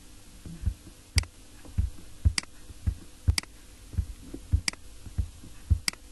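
Sharp clicks about once a second, not quite evenly spaced, with softer low thumps between them.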